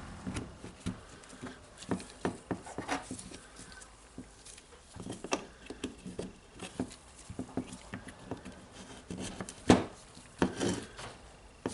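Irregular light clicks and taps from handling small parts: a replacement trigger switch and its cover being pressed into the groove of a Makita DHR202 rotary hammer's housing, with one sharper knock near the end.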